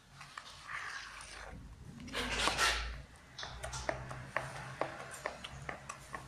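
A hand squishing and stirring wet tofu-meatball dough in a plastic bowl, making a string of sticky wet clicks and smacks. A louder rush of noise comes about two seconds in.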